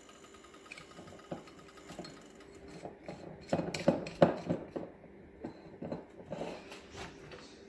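Irregular light knocks and clinks of cookware being handled at the stove, with a quick cluster of knocks about halfway through, over a faint steady hum.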